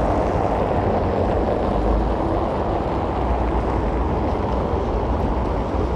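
Steady city traffic noise: the mixed hum of cars driving across a wide paved square.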